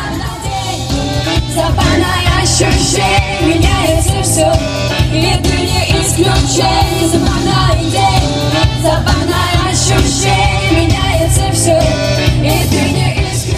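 Female vocalists singing a pop song over a backing track with a steady low bass.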